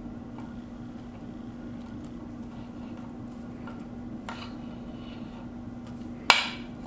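Small hand ratchet tightening a piston ring compressor band around a piston: a few light metal clicks, then one sharp clack near the end, over a steady low hum.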